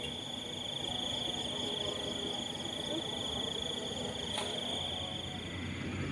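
Night insects trilling: a steady, high-pitched trill with a fast flutter, with fainter pulsing calls above it. One sharp click comes a little over four seconds in.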